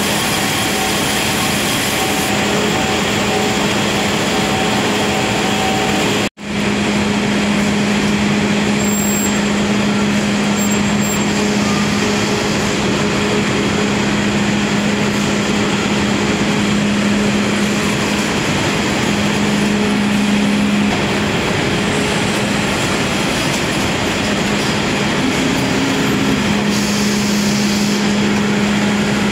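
Steady din of a can production line, machinery and conveyors running, with a constant hum. The sound cuts out for an instant about six seconds in.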